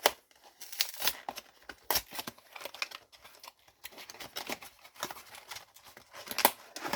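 Small cardboard trading-card box being torn and pried open by hand: irregular crinkling, tearing and clicking of card stock and packaging, with one sharper crack about six and a half seconds in.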